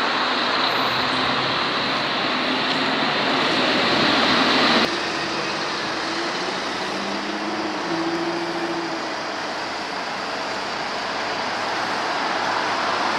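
A train passing through a station, a steady rushing rail noise. The sound changes abruptly a little under five seconds in, and faint low tones come in for a few seconds in the middle.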